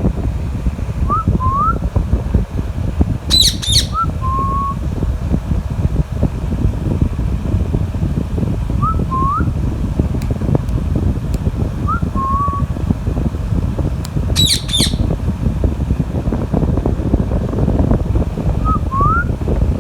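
Pet Psittacula parakeet giving two short, shrill squawks, about 3 s and 14 s in. Pairs of short rising whistle notes recur four times, over a steady low rumble like wind or a fan.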